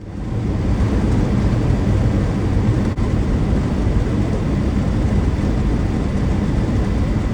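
Steady rumble of a vehicle driving at speed, road and wind noise, that starts abruptly.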